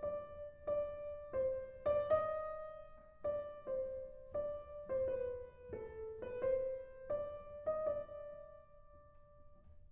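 Background music: a slow, simple melody of single piano notes about twice a second, each ringing and fading, trailing off near the end.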